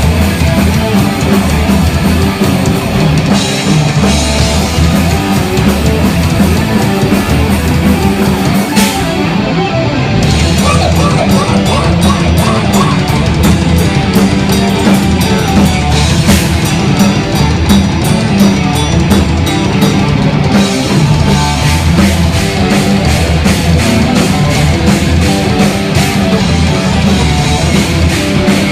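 Heavy metal band playing loud live: distorted electric guitars and a drum kit.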